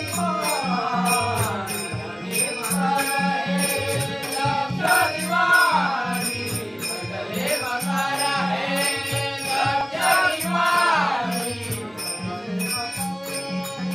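A group of men singing a devotional Hindu bhajan, accompanied by a steady beat on a hand drum and sharp, regular clashes of small hand cymbals.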